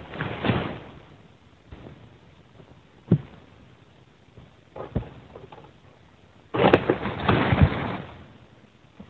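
Egrek (long-pole harvesting sickle) at work in an oil palm crown: sharp knocks at about three and five seconds as the blade bites, and the loudest, a rustling crash lasting over a second about seven seconds in, as cut fronds fall through the leaves.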